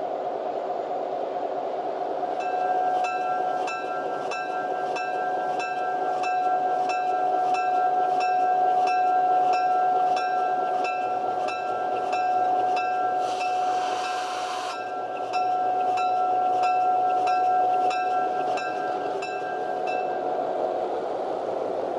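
Railroad crossing bell ringing rapidly, about three strikes a second, over the steady running of an approaching diesel passenger locomotive. The bell stops near the end, and a short hiss cuts in briefly about 13 seconds in.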